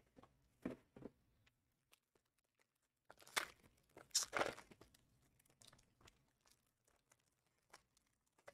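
Plastic wrapping torn and crinkled by hand: a few short rips, the two loudest about three and four seconds in, with faint rustling between.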